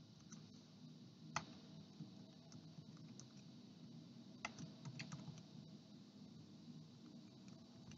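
Faint typing on a computer keyboard: scattered keystrokes, one louder about a second and a half in and a quick run at about four and a half to five seconds, over a low steady hum.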